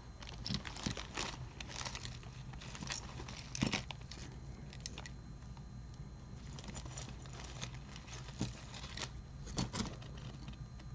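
Tangled costume jewelry being handled and worked apart: faint, scattered light clicks and rustles of chains, wires and beads knocking together.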